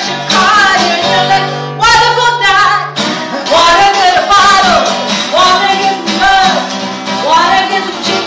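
A woman singing an improvised vocal line over instrumental backing music, her voice sliding and bending between held notes.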